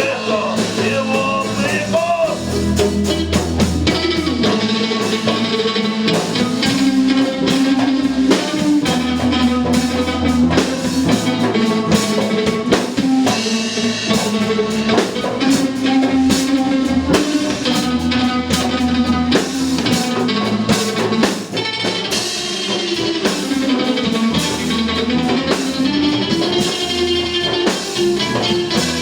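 A live band playing a rock song, with a drum kit keeping a steady beat under sustained instrumental notes.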